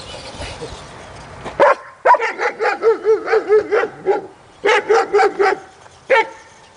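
Dog barking in two quick runs of short, rapid barks, then one more bark, while chasing a remote-controlled truck.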